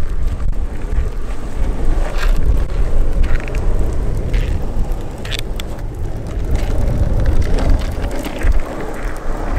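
Longboard's hard stock wheels rolling over rough asphalt, a steady low rumble, with wind noise on the microphone and a few brief scuffs.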